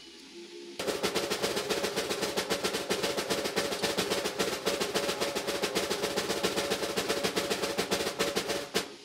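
Background music: a snare drum roll that starts about a second in and runs for about eight seconds before stopping just before the end.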